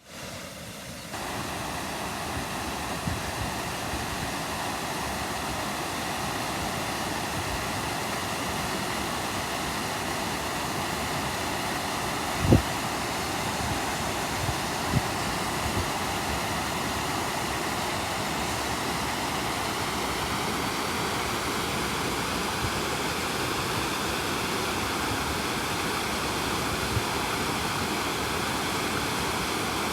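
Waterfall pouring steadily, a dense even rush of water. A few short low thumps break through, the loudest about twelve seconds in.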